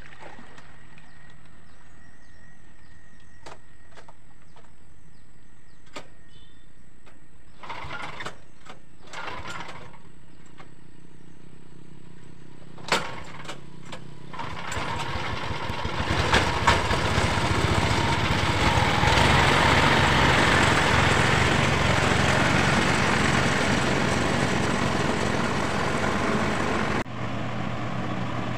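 Small gasoline engine of a homemade airboat, first running at a low, steady level with a few clicks. About halfway in it is revved up, and the propeller's rush grows loud and holds. Near the end it drops suddenly to a quieter, steadier run heard from farther off.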